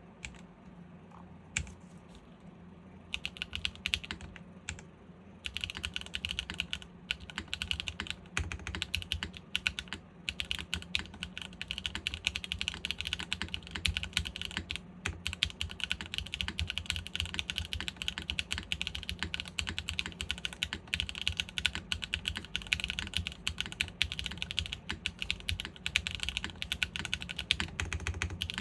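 Typing on a custom mechanical keyboard, a GAF 910 PC with stock SWK Jieum V2 switches on a top-mounted polypropylene plate, with PBT keycaps. A few isolated keystrokes come first, then steady fast typing from about five seconds in.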